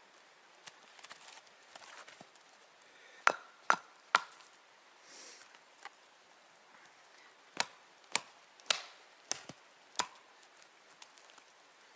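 Hand tool striking wood in sharp, ringing blows: three in quick succession, a pause, then five more at an even pace, with small knocks and taps between.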